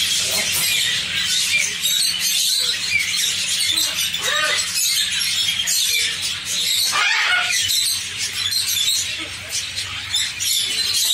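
Many caged pet birds chirping and chattering at once, a dense, continuous twittering with an occasional louder squawk, over a steady low hum.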